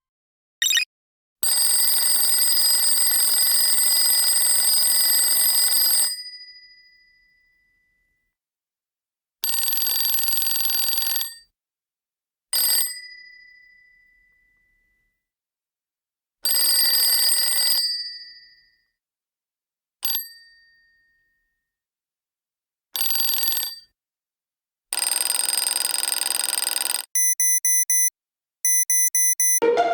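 A bell ringing continuously in eight bursts of very different lengths, from a split second to about four and a half seconds, each stop leaving a short ringing tail. Near the end, a quick run of short electronic beeps.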